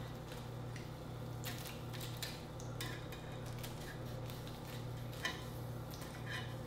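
Metal tongs clicking and scraping against a wire grill grate as grilled shrimp are flipped, a handful of separate sharp clicks. A steady low hum runs underneath.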